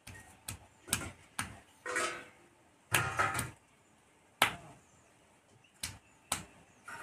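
Knife cutting mahua fruit on a slab: irregular sharp knocks of the blade hitting the board, roughly one or two a second, some with a short crunch as it goes through the fruit.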